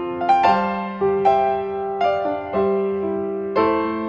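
Background music: a slow piano melody over chords, each note struck and left to ring and fade.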